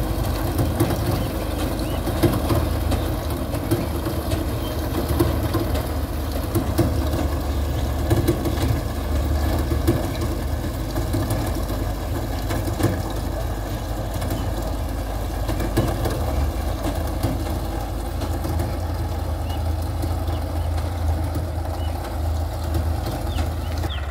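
John Deere combine harvester running steadily with a constant low engine hum.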